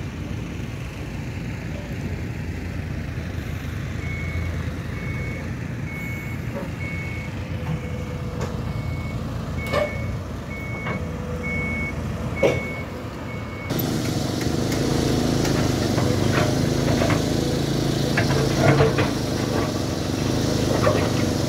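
Heavy construction machinery running, with a reversing alarm beeping steadily at about one and a half beeps a second. The beeping stops abruptly about two thirds of the way in, and the machinery becomes louder with clattering knocks.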